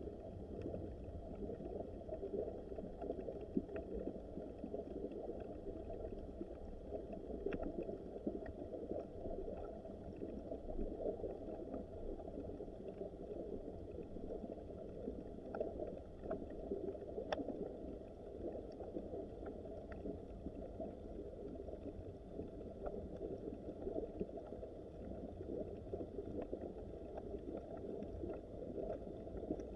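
Small mountain stream running over rocks: a steady, low rushing of water with faint scattered ticks above it.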